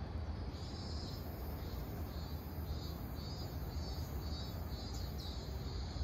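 Minmin cicada (Hyalessa maculaticollis) singing its repeated "min-min" call, pulsing about twice a second, over a steady low rumble.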